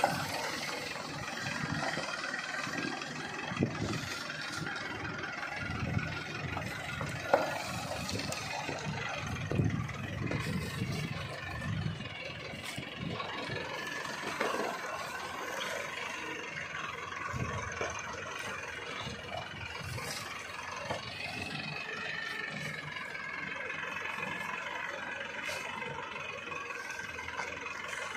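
Tractor engine running steadily under load as the tractor drives over and flattens banana plants, with a few sharp cracks in the first ten seconds or so.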